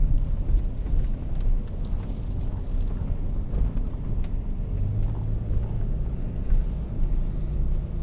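Engine and road rumble heard inside the cab of a heavy-duty pickup truck with a ZF PowerLine eight-speed automatic as it drives, with a steadier low drone for a moment about five seconds in.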